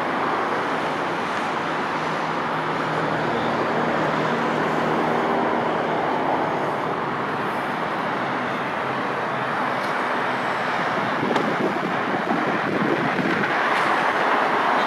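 Steady road traffic noise from a busy multi-lane highway: many cars' tyres and engines passing continuously.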